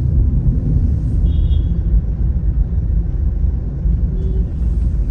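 Steady low road and engine rumble inside the cabin of a moving Toyota Innova Crysta.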